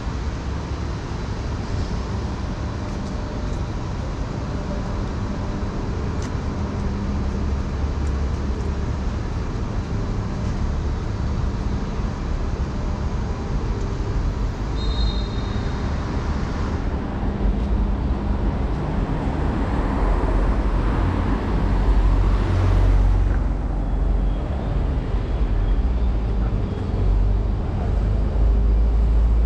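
Outdoor street ambience of road traffic: a steady low rumble and hum, with a vehicle swelling past around twenty seconds in and the rumble growing stronger toward the end.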